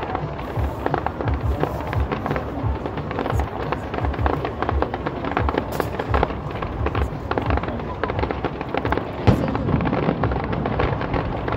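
Aerial fireworks bursting in quick, irregular succession: a dense string of pops and bangs, with one louder bang about nine seconds in.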